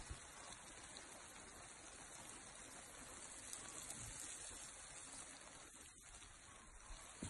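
Faint, steady hiss of water from a lawn sprinkler spraying over grass.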